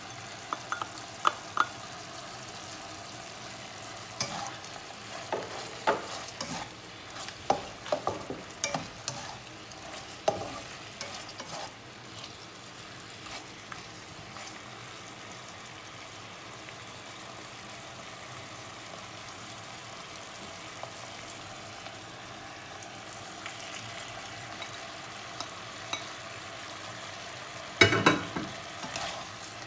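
Beef sizzling in a non-stick frying pan. For the first dozen seconds a spatula scrapes and knocks against the pan. Near the end there is a loud clatter and a burst of sizzling as onion rings go in.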